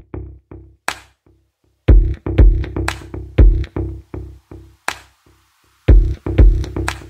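Electronic outro music: a drum-machine beat of heavy bass kicks and sharp snare hits. It drops out briefly about a second in and again around five seconds, then comes back.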